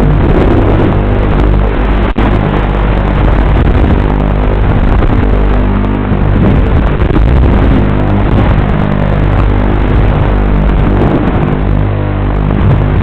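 Banshee-90HX FPV quadcopter's motors and propellers running hard in flight, a loud steady buzzing drone, with a brief dropout about two seconds in.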